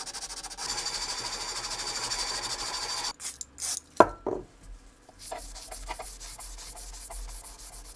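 P800 grit wet sandpaper rubbing over a welded steel bayonet tang, refining a ground-flush weld: quick, even strokes, then a steadier stretch of rubbing. There is a sharp knock about four seconds in, followed by fainter scraping strokes.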